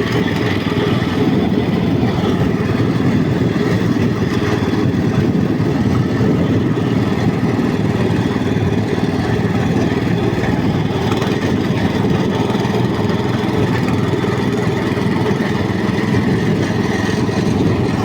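Walk-behind tractor engine running steadily as the machine drives along, with no revving or change in speed.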